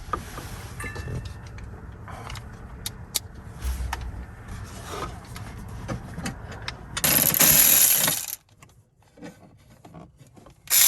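Metal tools clinking and clicking, then a socket ratchet run fast in a loud burst of clicking about seven seconds in, and again near the end, as the bolts holding a factory console safe are undone.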